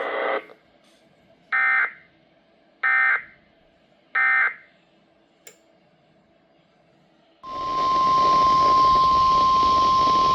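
Emergency Alert System end-of-message code: three short, buzzy digital data bursts about 1.3 seconds apart, marking the end of the severe thunderstorm warning. About seven seconds in, the NOAA Weather Radio 1050 Hz warning alarm tone starts, a steady loud high tone over radio hiss, announcing the next alert.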